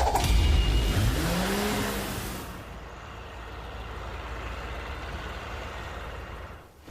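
Cartoon vehicle engine sound effect: loud revving with a rising pitch in the first two seconds or so, then dropping to a quieter steady running sound.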